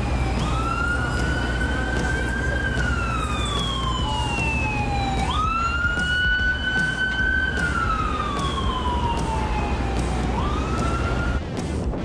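Emergency vehicle siren on a slow wail, each cycle a quick rise and then a long slide down, about every five seconds, over the rumble of city traffic. It cuts off suddenly near the end.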